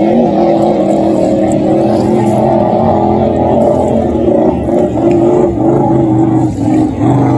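Racing hydroplane's engine running flat out at a steady high pitch as the boat speeds past, the tone wavering slightly and dipping a little near the end.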